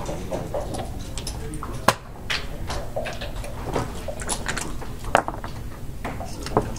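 Backgammon checkers and dice clicking on the board: three sharp clacks, about two seconds in, about five seconds in and near the end, with lighter tapping between, over steady room noise.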